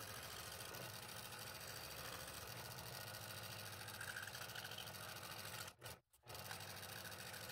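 Scroll saw running steadily, its fine blade cutting through thin, fairly soft wood, with a steady low hum. The sound drops out for a moment about six seconds in.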